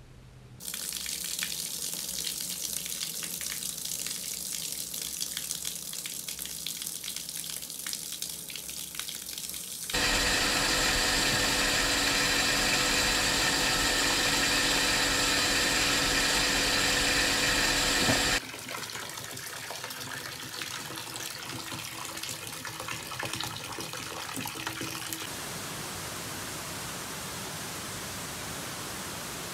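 Water running steadily from a tap. About ten seconds in, a louder, steady mechanical hum with a whine cuts in over it, the booster pump running. It stops abruptly some eight seconds later, leaving the running water.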